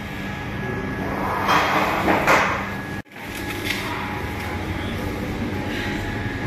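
Steady hum of shop machinery, with a louder rush of noise between about one and a half and two and a half seconds in. The sound cuts out abruptly for a moment about three seconds in.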